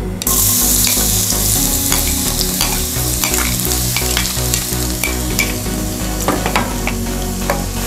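Minced garlic frying in hot cooking oil: a steady sizzle that starts suddenly as the garlic hits the oil, with scattered pops and crackles.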